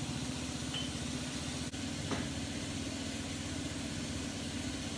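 Cummins turbo-diesel in a 1996 Dodge pickup idling steadily, with an even low pulse.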